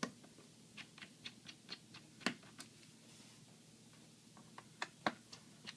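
Small sharp clicks of a screwdriver working the screws out of a laptop's plastic bottom cover, coming irregularly several a second, pausing in the middle, with two louder clicks near the end.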